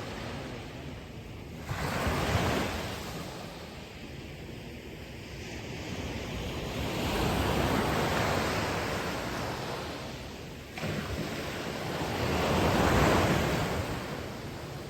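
Ocean waves breaking on the shore: three surges of surf that each swell and fade, the first and last beginning with a sudden crash, about two seconds and eleven seconds in.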